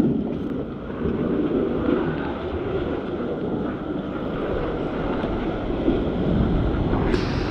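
Surf washing against rocks with wind buffeting the microphone: a steady, deep rushing noise that turns brighter and hissier near the end.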